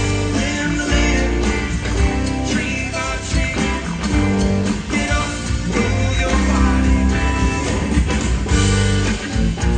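A rock band playing live through a loud PA: electric guitar over bass and drums, with steady drum hits throughout.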